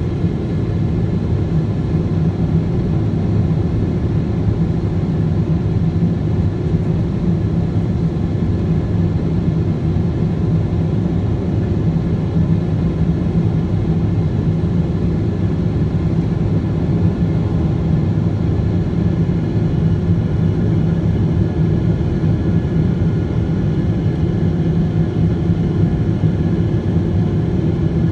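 Boeing 777-200ER's GE90 turbofan engines at climb power, heard inside the cabin next to the engine: a steady, unbroken rumble with a steady drone of engine tones over it.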